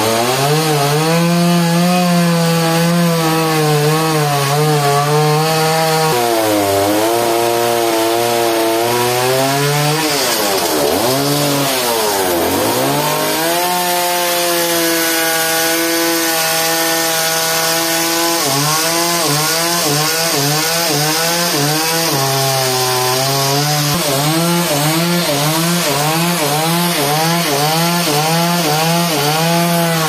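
Large two-stroke chainsaw with a long bar cutting through a big log under load. About ten seconds in, its pitch drops steeply and then climbs back. Later on, the pitch rises and falls about twice a second as the saw works in the cut.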